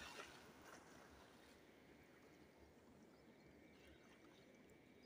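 Near silence, with only a faint steady background hiss.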